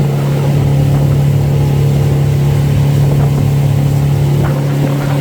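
Motorboat engine running loud and steady, holding one even pitch.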